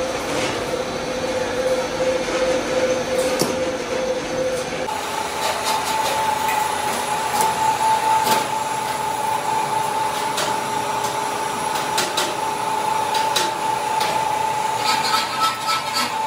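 CNC cross-holder U-drilling and facing machine cutting inside its closed guard, with coolant spraying and scattered sharp ticks. A steady whine jumps to a higher pitch about five seconds in and holds there.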